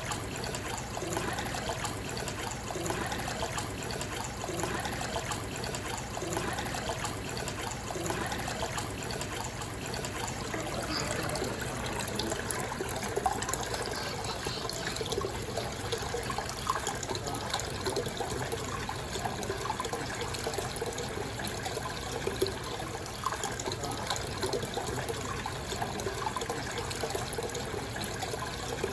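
Aquarium water trickling and splashing steadily, with air bubbles popping at the surface.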